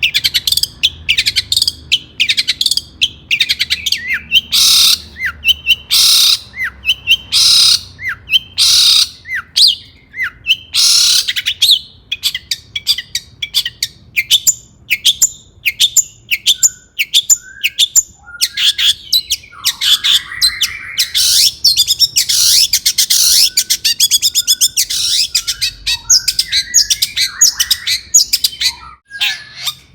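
Long-tailed shrike (cendet) singing in a fast, unbroken run of sharp high notes, with harsh scratchy phrases and rapid chattering mixed in.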